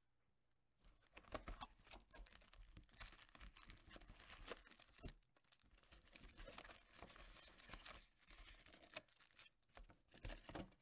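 Faint tearing and crinkling as a cardboard trading-card hobby box is opened and its stack of foil packs is pulled out and handled, starting about a second in.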